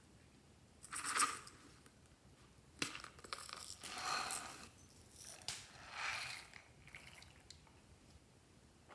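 Slime being squished and mixed by hand, with three bursts of crackling: about a second in, from about three to four and a half seconds, and around six seconds. Sharp clicks come between the bursts.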